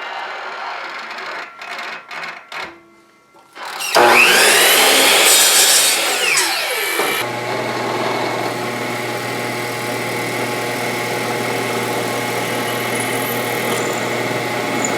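Power tools working wood in short edited stretches. About four seconds in, a motor spins up loudly and winds down again a few seconds later, and then a steady machine hum runs on.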